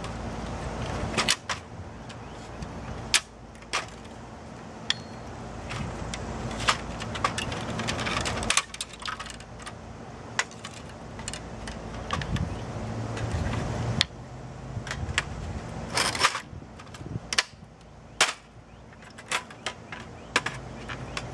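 An HP inkjet printer being pried apart by hand: irregular clicks, snaps and rattles of its plastic and sheet-metal parts, with a few sharper cracks.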